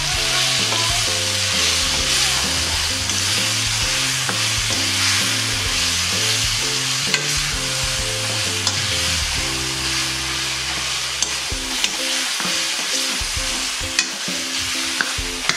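Boiled taro leaves sizzling in hot oil in an aluminium kadhai, stirred with a steel ladle that scrapes and now and then clicks against the pan. A soft low background tune runs under it and stops about three-quarters of the way through.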